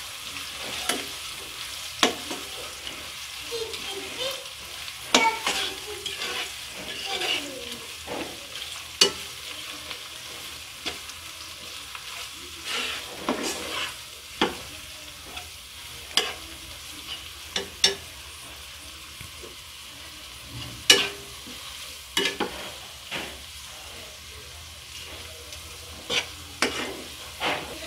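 Chopped onion and spice pastes sizzling in hot oil in a nonstick wok as they are stirred together, with a metal spatula scraping and clicking against the pan at irregular intervals.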